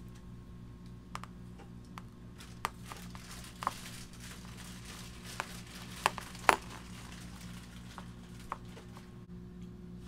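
Scattered small clicks and rustles of hands working a wire fid and folded release line through the core of braided Dyneema rope, over a steady low hum. The clicks are loudest a little past halfway.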